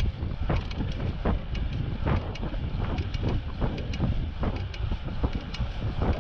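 Wind noise on a GoPro's microphone from riding a road bike at about 18 mph: a steady low rumble broken by frequent short gusts.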